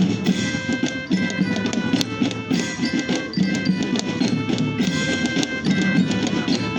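Loud music with percussion: held tones over a rhythm of sharp wood-block-like knocks and drums.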